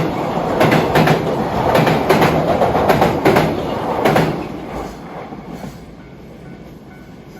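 Train passing close by, its wheels clattering over the rail joints in quick repeated knocks over a running rumble; the sound fades away from about four and a half seconds in.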